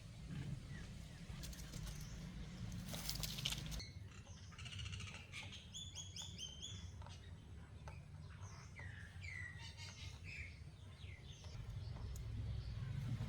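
Small birds chirping in many short, quick calls, thickest from about four seconds in, over a low steady rumble. A short burst of rustling comes just before the chirping starts.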